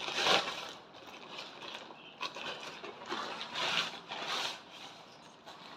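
Plastic courier mailer bag crinkling and rustling as it is torn open and pulled off a cardboard box, in a few bursts: one just after the start and two more around four seconds in.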